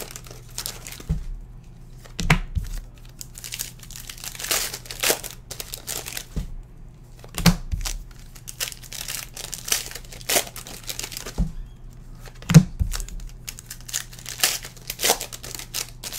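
Plastic wrappers of basketball trading-card packs crinkling and tearing as the packs are opened and the cards handled, in repeated short rustles. A few sharp knocks come through, the loudest about twelve and a half seconds in.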